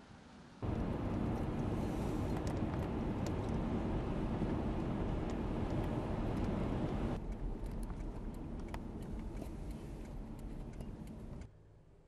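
Storm wind rushing over the microphone: a loud, steady rush that starts about half a second in, turns somewhat quieter with scattered faint ticks about seven seconds in, and drops away shortly before the end.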